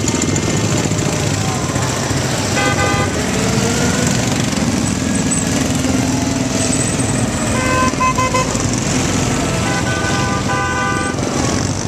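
Small engines of miniature parade cars running as they drive past, with horns tooting: a short toot about three seconds in, two quick toots in the middle, and a longer honk near the end.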